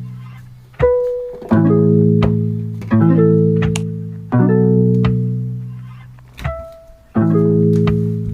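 Background music: slow plucked-string chords, each struck sharply and left to die away.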